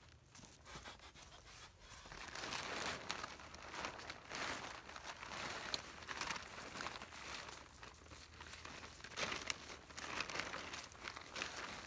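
Plastic tarp crinkling and rustling in irregular bursts as it is pulled and spread out over the ground, starting about two seconds in.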